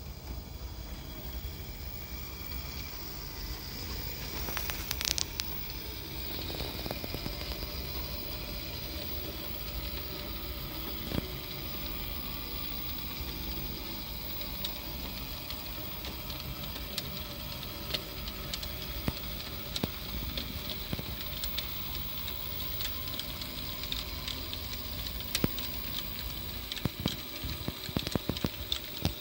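HO-scale brass PFM three-truck Climax model locomotive running along the track, a steady motor-and-gear hum with a faint high whine, and wheels clicking over the rails, the clicks coming thicker near the end.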